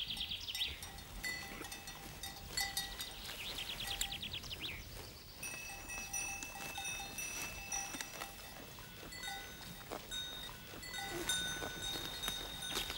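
A herd of goats grazing: grass being torn and chewed close by, with small bells on the goats' collars clinking now and then.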